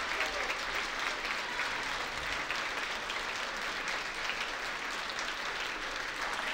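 A large seated audience applauding steadily, many hands clapping at once.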